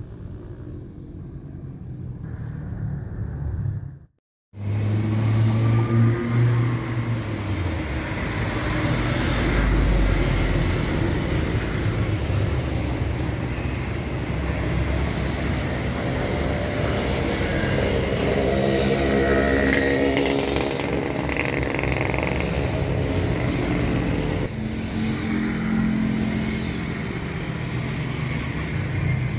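Steady engine noise from jets and vehicles at an airport, with a short total dropout about four seconds in.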